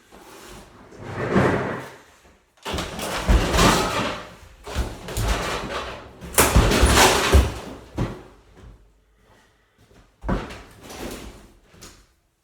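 A refrigerator cabinet being smashed by heavy blows: five bursts of banging, crashing metal and plastic, each lasting a second or two, with short pauses between them.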